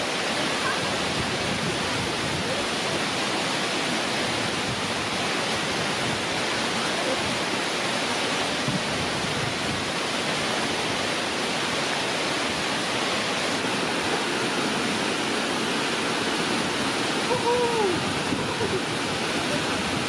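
Steady rushing noise of a waterfall, a wide curtain of water pouring into a rocky pool.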